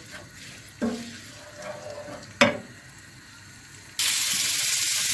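Two short, ringing clinks, then about four seconds in a loud, steady hiss starts suddenly, the sound of running water or sizzling.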